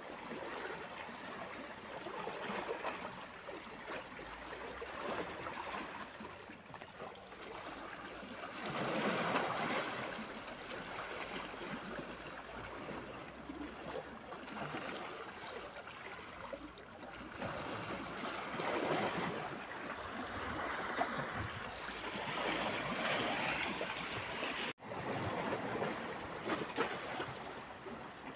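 Small sea waves lapping and splashing against shoreline boulders, the wash swelling into louder surges every several seconds as a wave breaks on the rocks.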